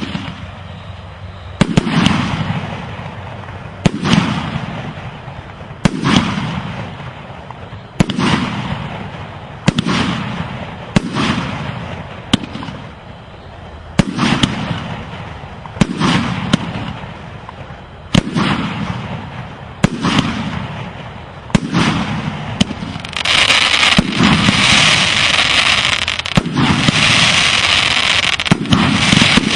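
Fireworks going off: a sharp bang about every two seconds, each followed by a fading rumble. Near the end a dense, steady crackling sets in beneath the bangs.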